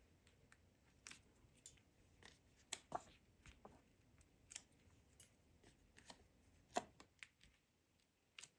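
Faint, scattered clicks and brief rustles of cardstock and small craft tools being handled, with a few sharper clicks about three seconds in and near seven seconds.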